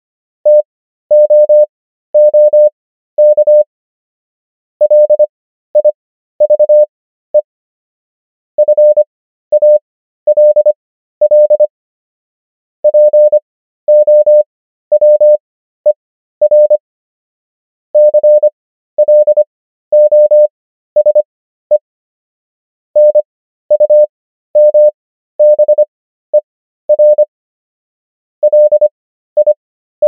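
Morse code: a single steady mid-pitched beep keyed on and off in quick dots and dashes at 25 words per minute character speed. Each burst is one word, with Farnsworth spacing stretching the gaps between words to an overall 13 words per minute. The bursts spell common English words such as "answer" and "fall".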